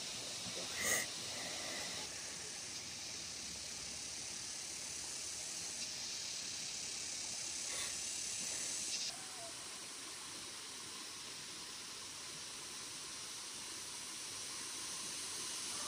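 Steady, high outdoor hiss of background noise, dropping slightly about nine seconds in. A short sharp sound comes about a second in.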